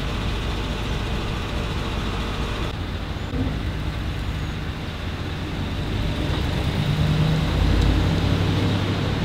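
Box moving truck's engine running as it pulls away towing a car on a trailer, a steady rumble that swells for a couple of seconds near the end.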